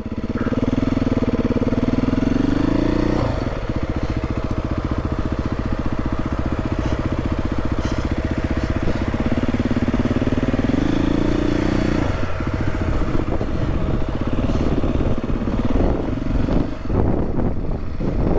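Beta 430 RR-S enduro bike's single-cylinder four-stroke engine running at low revs off-road, picking up twice for a few seconds and dropping back each time. There are a few short knocks near the end.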